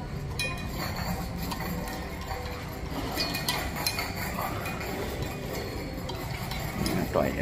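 Hospital corridor ambience: a steady low hum with scattered light clinks and taps.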